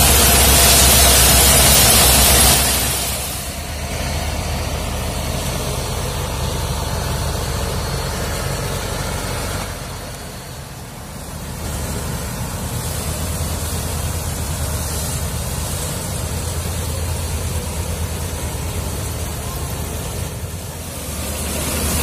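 A John Deere 5050E tractor's three-cylinder diesel running a PTO-driven thresher that is threshing soybean plants, with a steady drone and low hum. It starts with a louder rushing noise for the first couple of seconds, then settles to a steadier drone with a brief dip about halfway.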